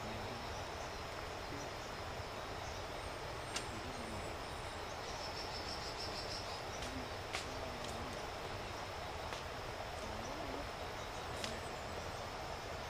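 Forest ambience with a steady insect buzz, a few sharp twig snaps as a gorilla moves through the undergrowth, and several faint, short low hums.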